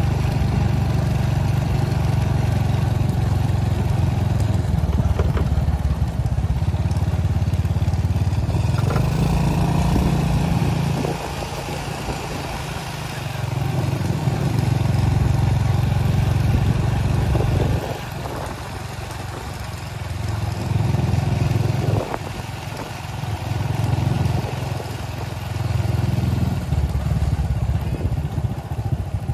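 A vehicle engine running close by, easing off and picking up again several times.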